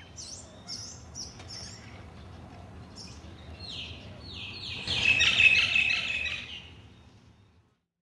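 Birds chirping: scattered short high chirps, then about four seconds in a louder run of quick, downward-sliding chirps that peaks and fades out near the end.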